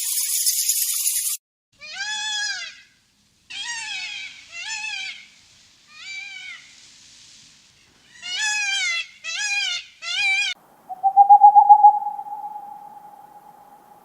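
A cat meowing seven times, short calls that rise and fall in pitch, in two groups. It opens with a loud hiss that cuts off suddenly, and a steady trilling call sets in near the end.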